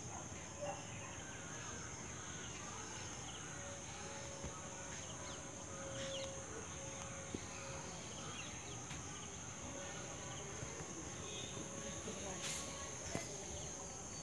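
Insects, likely crickets, keep up a steady, high-pitched outdoor chorus. A lower steady hum sounds for a few seconds at a time, with scattered faint chirps and a few light clicks.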